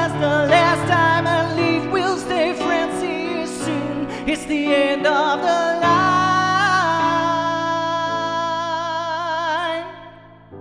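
Solo singing over piano accompaniment: a melodic line with vibrato, ending on a long held note that fades out near the end while the piano chord rings on.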